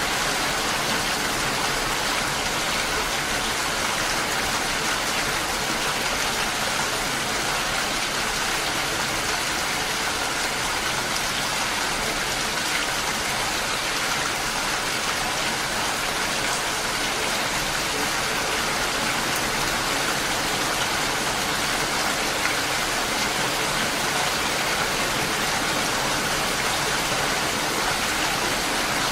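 Steady rain falling, an even hiss that holds level without breaks.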